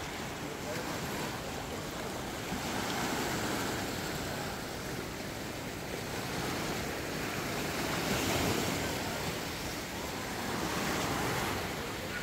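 Small sea waves washing against shoreline rocks and sand, a steady rush of surf that swells and fades every few seconds.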